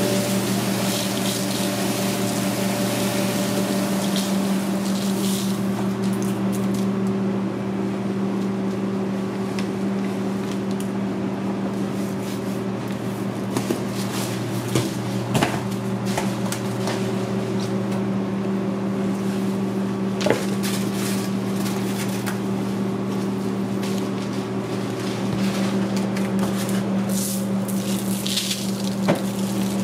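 Steady mechanical hum of kitchen equipment, a low drone that does not change. Over it come soft rustling hiss and a few light taps as seasoning is shaken and rubbed onto a raw beef roast.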